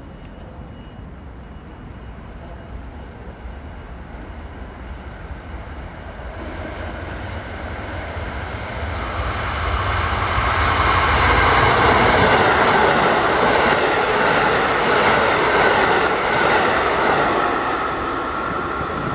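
A train approaching along the track and running past close by, growing steadily louder for about ten seconds and then holding loud, with the rumble and clatter of wheels on rail.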